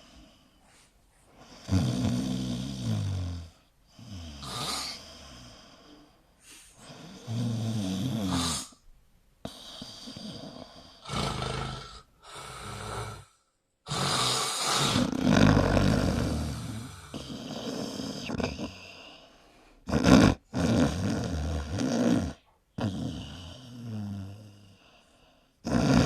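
A sleeping man snoring: a string of snores, one with each breath, each lasting one to three seconds with short gaps between.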